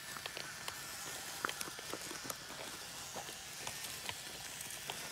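Sand and small stones crunching in irregular little clicks and crackles over a steady hiss.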